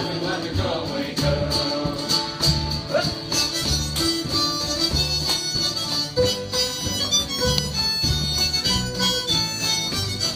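Acoustic folk band playing a tune: a harmonica carries the melody over a plucked double bass and an acoustic guitar.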